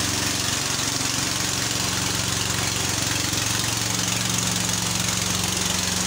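Small engine of a motorised river raft running steadily at a low, even speed, with a fast regular chugging, over a steady hiss of water.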